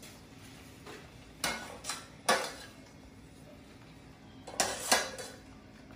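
A metal mesh skimmer clinking against a stainless steel pot: three clinks close together, then two more near the end.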